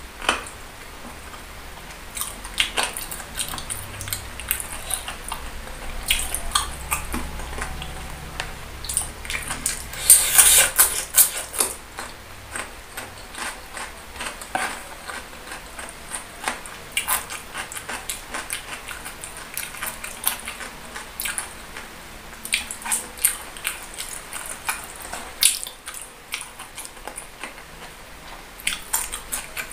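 Close-miked wet chewing and mouth smacking of boneless chicken feet in thick spicy sauce: many sharp, wet clicks, with a denser, louder flurry about ten seconds in.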